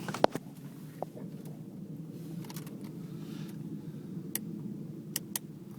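A few sharp clicks from the car's controls as the light switch and key are worked, over a steady low hum inside the cabin of a 2006 Mini Cooper S with the ignition on.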